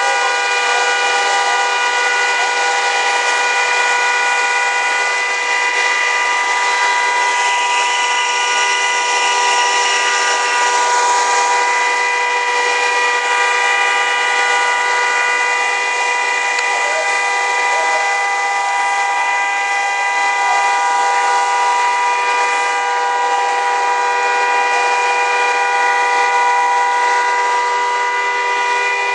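Fire engines' pumps and engines running steadily at a structure fire: a loud drone of several held pitches over a constant hiss of water spray and burning.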